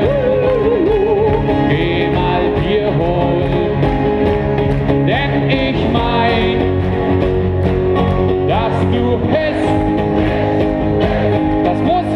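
Live band music with acoustic guitar and keyboard, and singing over it.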